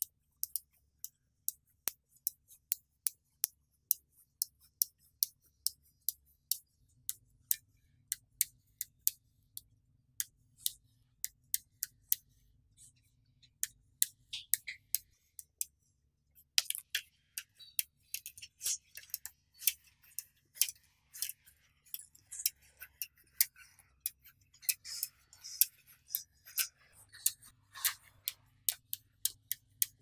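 Small magnetic balls clicking sharply as they snap one at a time onto the edge of a flat sheet of balls, two or three clicks a second. From about halfway through the clicks come faster, mixed with a light rattle and scrape of the balls shifting.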